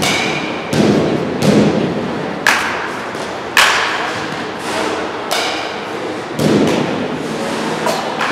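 Baseball bat hitting pitched balls in an indoor batting cage: sharp hits, each followed by a short ringing, about every one to three seconds. Duller thuds come in between.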